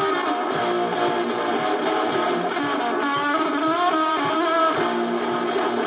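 Electric guitar music: an instrumental passage of a rock song, with strummed and picked notes over a steady backing.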